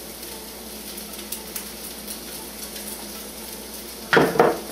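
Polenta cakes frying in a pan, a steady sizzle with faint crackles, and a brief louder double burst of sound about four seconds in.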